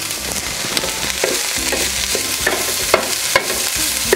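Kale sizzling in olive oil in a skillet over medium heat, stirred in the pan, with a few sharp clicks of the utensil against the pan.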